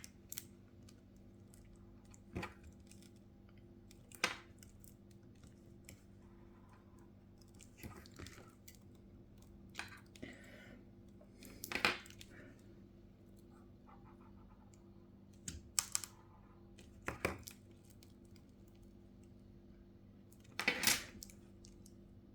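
Scattered short scrapes and clicks of hand tools working on an iPhone 7 screen while the glass is separated from the LCD, irregularly spaced over a steady low hum. The loudest scrapes come about twelve seconds in and near the end.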